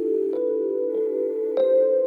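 Background music: soft synthesizer notes held over a steady sustained tone, changing every half second or so.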